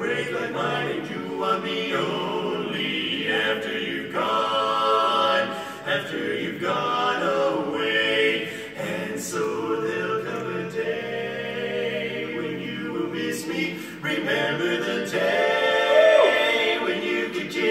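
Male barbershop quartet singing a cappella in close four-part harmony.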